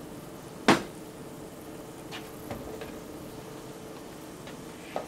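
Kitchen utensils being handled on a worktop: one sharp knock about a second in, then a few light clicks and taps, over a steady hum.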